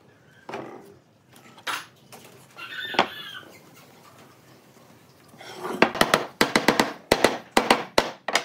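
Wooden cabinet-door frame pieces knocking and rubbing on a workbench as they are fitted around the panel by hand, with a short squeak about three seconds in. From about five and a half seconds in comes a fast run of sharp wooden knocks, the loudest part.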